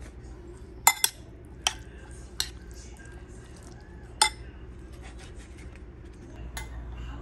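Metal spoon clinking against a ceramic bowl of beans as it scoops and stirs: about six sharp, separate clinks, loudest about a second in and about four seconds in, over a steady low hum.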